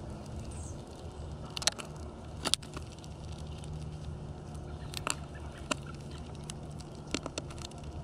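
House finches pecking and cracking seed in a plastic window feeder: irregular sharp clicks and taps, loudest in the first three seconds, over a low steady rumble.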